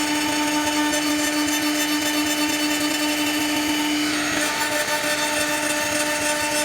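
CNC router spindle running with a steady high whine while the bit cuts into wood; about four seconds in, a rougher hiss of cutting grows louder.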